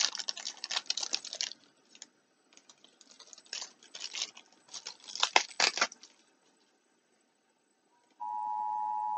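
Small items and their packaging handled and unwrapped, a run of irregular rustling and clicking in two spells, with the sharpest clicks a little past the middle. About eight seconds in, a steady tone starts and holds.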